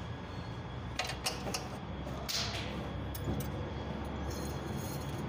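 A few light metallic clicks and rattles of hand work in a car's engine bay, over a steady low hum.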